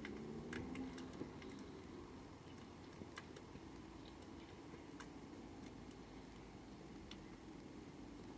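Faint, irregular ticks and plops as canned food in sauce drips from upturned cans onto a head and into a paddling pool, over a low steady outdoor hum.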